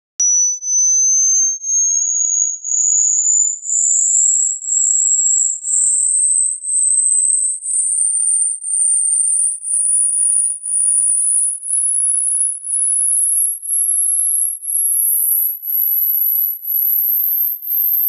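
Pure sine test tone of an ear-age hearing test, rising in small steps from about 6,000 to about 12,400 hertz, with a brief dip in loudness between steps about once a second.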